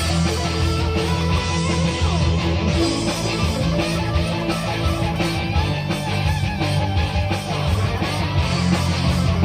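A rock guitar jam: guitar played continuously over a heavy bass line.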